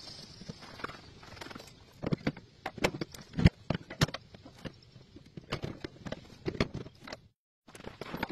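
Irregular sharp knocks and metal clanks as a John Deere X304 lawn tractor's mower deck is pushed into place and fitted, with footsteps on gravel; the loudest knock comes about three and a half seconds in. The sound cuts out briefly near the end.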